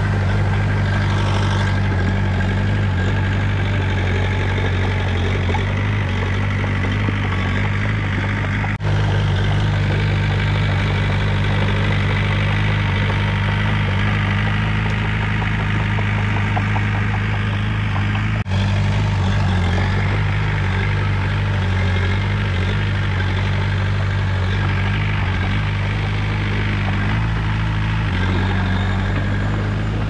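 Diesel engine of a Komatsu D20 crawler bulldozer running steadily at constant speed, with two brief dropouts.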